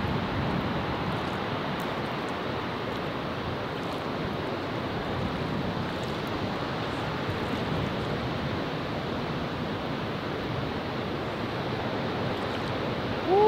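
Steady rushing noise of water on a lagoon, with some wind on the microphone, ending in a short, loud rising-and-falling hoot-like tone.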